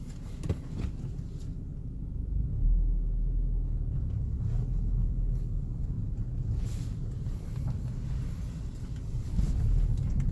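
Low, steady rumble of a Ford Focus ST idling, with a few faint clicks scattered through it.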